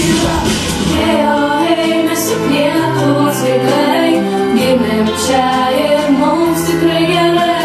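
A song playing: voices singing held notes over instrumental accompaniment.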